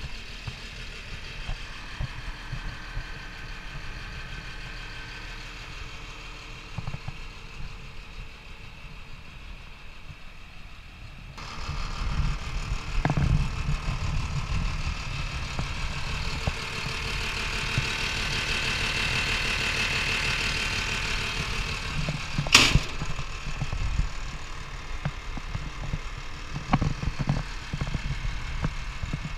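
Caterpillar D6K2 dozer's diesel engine idling steadily, heard closer and louder from about eleven seconds in with more air hiss on top. About two-thirds of the way through there is one sharp knock, and a few lighter knocks come near the end.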